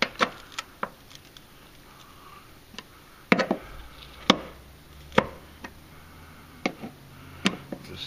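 Scattered sharp metal clicks and knocks, about eight spread irregularly, as a large Phillips screwdriver works the bolts of a Honda Odyssey's sliding-door striker to reposition it.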